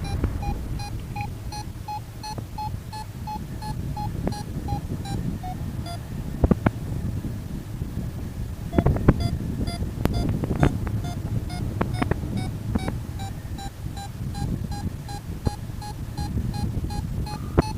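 Drone remote controller sounding rapid warning beeps at one steady pitch, about three a second, breaking off for a couple of seconds midway, while strong wind buffets the microphone and a few sharp knocks are heard. Per the title, the aircraft is struggling against a strong south wind and cannot make it back.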